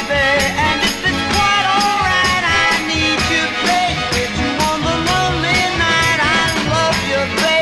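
Dance music playing through a club sound system from DJ decks: a steady, evenly pulsing beat with a sung vocal melody over it.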